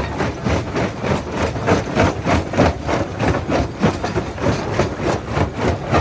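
Primary jaw crusher breaking rock: a dense, uneven run of sharp cracks and knocks, several a second, over the steady low rumble of the machine.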